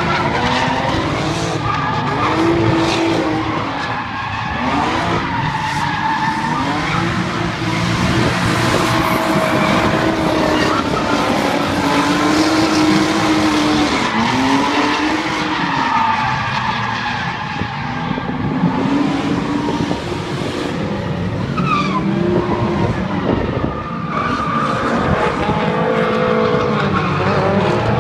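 Drift cars' engines revving hard, rising and falling in pitch again and again as they slide through the course, with the screech of sliding tyres throughout.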